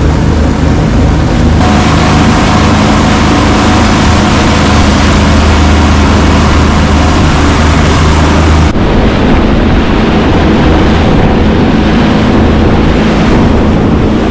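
Honda 60 hp four-stroke outboard running under way, with the loud rush of water churning in the wake. The sound shifts abruptly about nine seconds in, the low engine tone dropping back.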